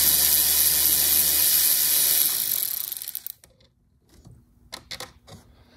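Cordless electric ratchet running steadily as it spins out a bolt with a 10 mm deep socket, then stopping about three seconds in. A few faint clicks follow.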